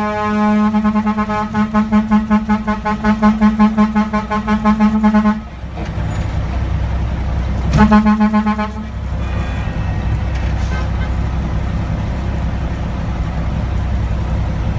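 Mack RD truck's air horn sounding a long, pulsing blast that cuts off about five seconds in. A short second blast follows a couple of seconds later, then the truck's diesel engine runs steadily.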